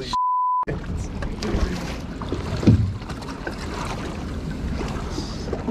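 A half-second beep tone dubbed in near the start, with all other sound cut out beneath it, the mark of a censor bleep. Then steady wind and water noise aboard a boat, with a low rumble and one thump about halfway through.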